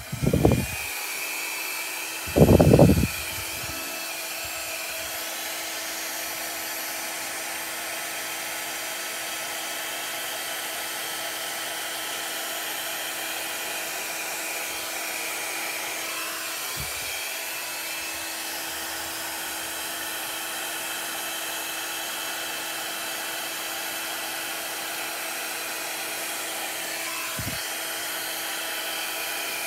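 Small handheld blow dryer running steadily on high with the cool shot button held, blowing air onto a freshly poured acrylic canvas to spread the paint outward into a bloom. There is a brief loud low rumble about two and a half seconds in.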